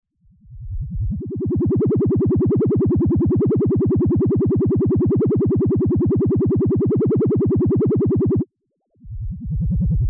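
Synthesized UFO sound effect: a low electronic hum pulsing rapidly, about eight pulses a second, that swells in over the first second, holds steady and cuts off suddenly near the end. About half a second later a shorter pulsing tone starts up.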